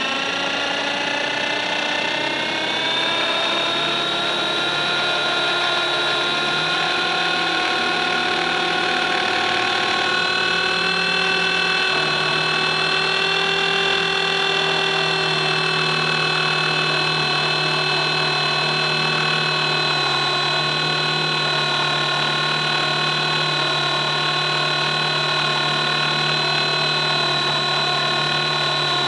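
Electric 450-size RC helicopter (E-Razor 450) with its brushless motor and main gear whining. The pitch rises over the first few seconds as the rotor spools up, then holds steady.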